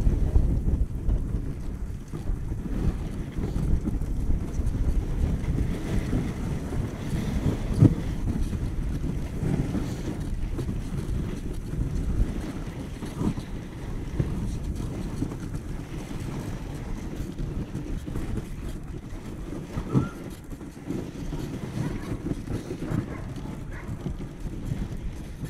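Dog sled running over packed snow behind a husky team: a steady low rumble from the runners, with wind buffeting the microphone. Two short louder bumps, about eight seconds in and again near twenty seconds.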